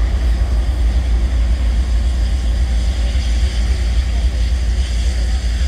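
Union Pacific diesel locomotive and a coupled passenger support car rolling slowly past at close range, a deep steady rumble with the noise of the train moving along the track.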